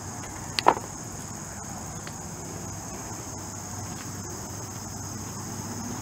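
Steady high-pitched chorus of insects in the summer outdoors, with one brief short sound a little under a second in.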